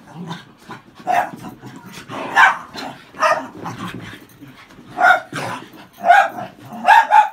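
Cairn terriers barking as they scrap with one another: short sharp barks coming in irregular bursts, some in quick pairs or triples, with the loudest ones about five seconds in and near the end.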